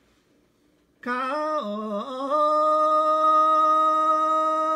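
A man singing a traditional chanted song solo, without accompaniment. After about a second's pause for breath he comes in with a few sliding notes, then holds one long steady note.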